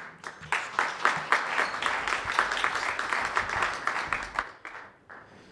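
Audience applauding: dense clapping from a room of people that starts about half a second in and dies away near the end.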